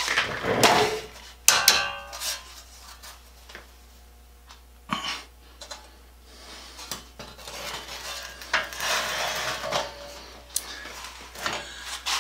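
A rusty two-man crosscut saw blade and its handle hardware being handled and turned over: irregular metallic clanks, clicks and rattles, with a stretch of scraping and rubbing in the middle as a wooden handle is fitted onto the blade's end.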